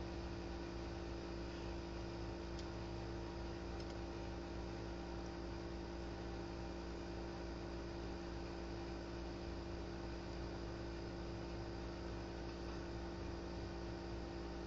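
Steady electrical hum with a layer of hiss, unchanging throughout, with two faint ticks between two and four seconds in.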